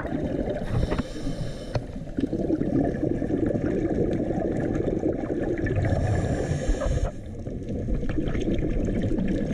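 Muffled underwater gurgling of scuba divers' exhaled bubbles and regulators, heard through a camera housing, with two longer hissing stretches about a second in and around six seconds in.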